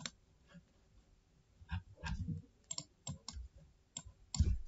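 Light clicks from a computer mouse and keyboard, about ten at irregular intervals, most of them in the second half.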